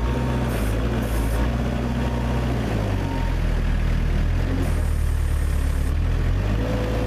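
Forklift engine running under load, its pitch stepping up and down a few times as it works. A thin steady whine sits over it for the first three seconds or so.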